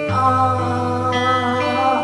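A woman singing live, holding long notes into a microphone over band accompaniment with guitar and a steady bass note that changes at the start and again at the end.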